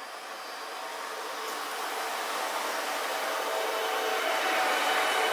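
Italian E402B electric locomotive pulling a passenger train out of a station and passing close by: a steady hum with several whining tones that grows louder as the locomotive and its first coaches draw level.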